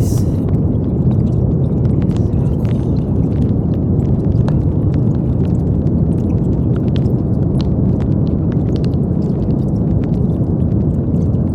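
Steady brown noise: a deep, even rumbling hiss, strongest in the low end, with faint scattered ticks on top.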